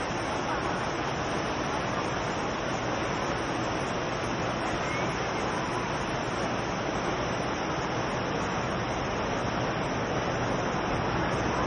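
Revson Fountain's water jets splashing into the basin, a steady rushing hiss without letup.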